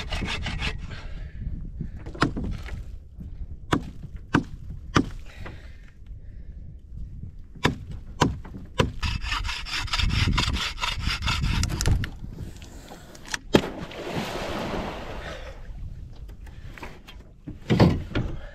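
Folding hand saw cutting into a dead standing tree trunk: quick back-and-forth strokes at the start and again for a few seconds in the middle, with sharp knocks scattered between. A brief rushing noise follows the second burst of sawing.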